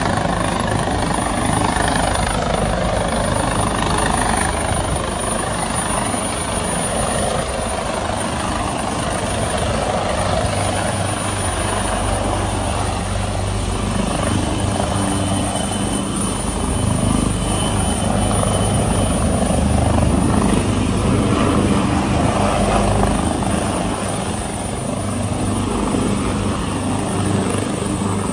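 Helicopter's rotor and turbine running steadily as it comes in low and sets down on a superyacht's bow helipad.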